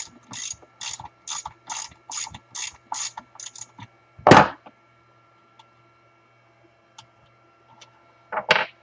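Ratchet clicking in short back-and-forth strokes, about three strokes a second, stopping just before four seconds in. A loud knock follows, and a quick double knock comes near the end.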